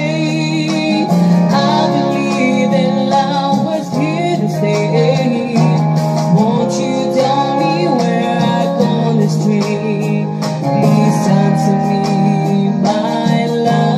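A Samoan love song plays: a singing voice with gliding, held notes over steady guitar-led backing music.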